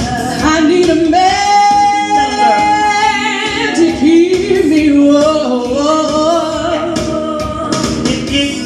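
Two women singing live into handheld microphones over backing music, with one long held note about a second in.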